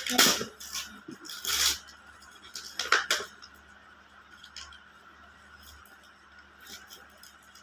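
Gift packaging being handled and torn open, three short rough rustling or ripping bursts in the first few seconds, then a few faint clicks and crinkles.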